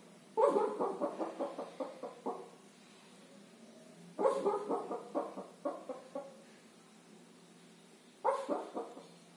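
Sleeping Shih Tzu barking in its sleep while dreaming: three bouts of quick, short bark-like yips, about four or five a second, with pauses between them.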